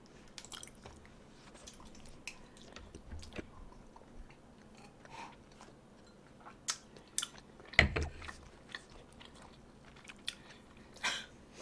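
Close-miked eating sounds: quiet chewing with scattered wet mouth clicks, and a sharper click about eight seconds in.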